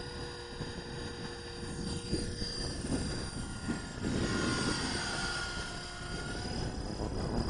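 Electric Blade 330X RC helicopter's rotor and brushless motor whining steadily at flying speed as it lifts off the runway and climbs away. The sound grows louder about halfway through.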